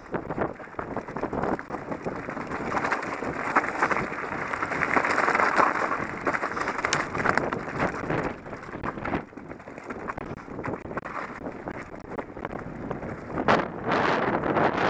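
Mountain bike riding down a loose rocky gravel trail: tyres crunching over stones with many small rattles and knocks from the bike, and wind buffeting the microphone. It gets louder near the end.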